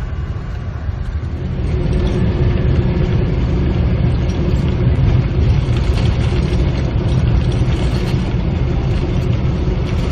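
Loud, steady rumble of a Boeing 747-400 heard from inside the cockpit: engine and airframe noise. It grows louder about a second and a half in, when a steady hum joins it.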